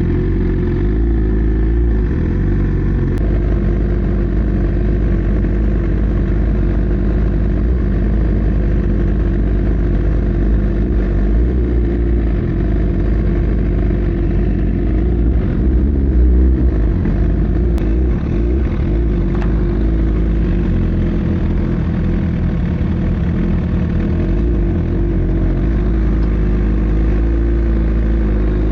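Sport motorcycle running steadily while being ridden, with a dense, even low rumble throughout.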